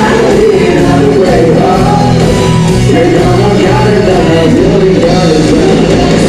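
Live band playing loud amplified music, with voices singing over bass and drums.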